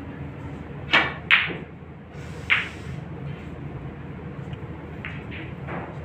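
Snooker shot: the cue tip strikes the cue ball, and less than half a second later the cue ball hits an object ball with a sharp click. Another sharp ball click comes about a second after that, and fainter clicks near the end, over a steady low room hum.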